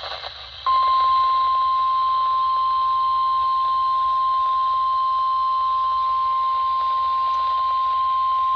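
NOAA Weather Radio warning alarm tone: a single steady 1050 Hz tone that comes in about a second in and holds unbroken, over the receiver's radio static hiss. It is the alert signal that sets off weather radios just before a severe thunderstorm warning is read.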